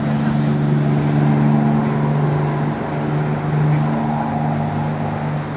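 Boat engine running on the river with a steady low drone.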